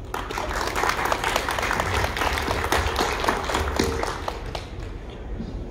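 Audience applauding: many hands clapping at once, starting at once and dying away near the end.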